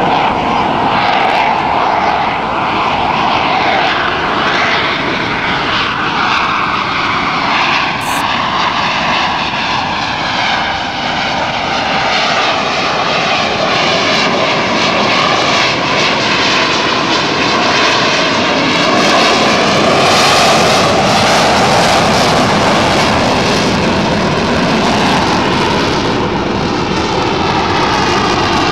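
Blue Angels F/A-18 Hornet jets flying past low, their twin jet engines a loud, continuous roar. Whooshing sweeps run through the roar as the jets pass, and it is loudest about two-thirds of the way through.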